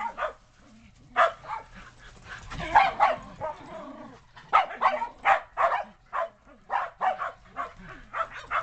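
Shetland sheepdogs barking repeatedly, short sharp barks coming in quick runs with brief pauses between.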